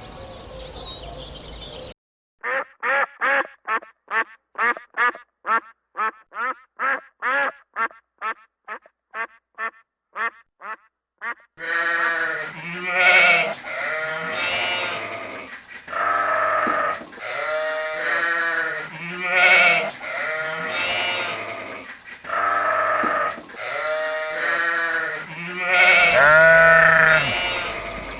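Birdsong for the first two seconds, then a long run of short, evenly spaced animal calls, about two a second, growing fainter. From about a third of the way in, a flock of small livestock bleats, with many calls overlapping.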